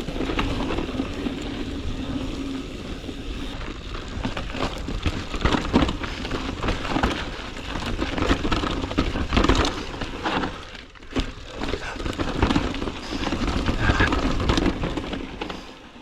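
Guerrilla Gravity Smash full-suspension mountain bike riding a rough dirt trail: tyres rolling and crunching over dirt and rocks, with frequent knocks and rattles from the bike and wind on the microphone.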